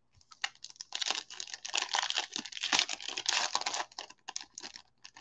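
Foil wrapper of a baseball card pack crinkling and tearing as it is pulled open by hand, a run of irregular crackles starting about half a second in.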